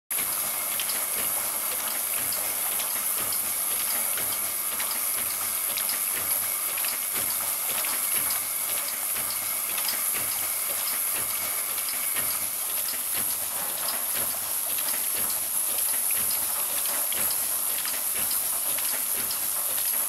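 Ultrasonic bottle washing machine running: a steady hiss of water spray with frequent small clicks and clatters from its mechanism, over a high-pitched whine. A thin steady tone in the mix stops about twelve seconds in.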